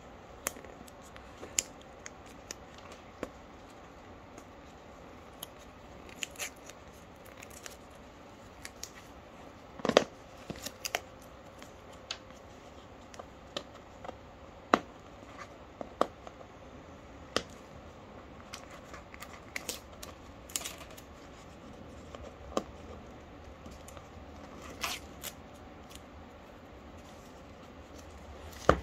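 Fingers picking and scratching at the seal stickers and cardboard of a Samsung Galaxy S22 phone box: scattered sharp clicks and scratches, a few of them louder taps.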